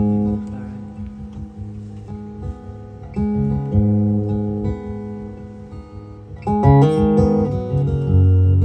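Solo acoustic guitar playing a song's introduction: chords strummed and left to ring, a new chord struck every few seconds, with a busier flurry of notes a little before the end.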